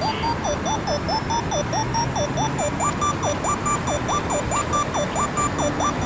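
Electronic background music: a synth line repeatedly sliding down and back up in pitch, about twice a second, stepping up to a higher pitch a little under halfway through, over a steady high-pitched beat.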